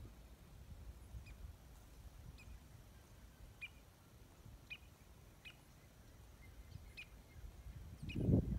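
Birds giving short, sharp chirps, single notes about once a second, over a low rumble. A loud low rumble rises briefly near the end.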